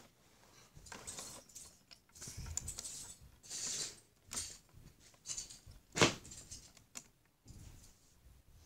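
Plastic Lego bricks being handled and pressed onto a model: scattered light clicks and rustling, with one sharper click about six seconds in.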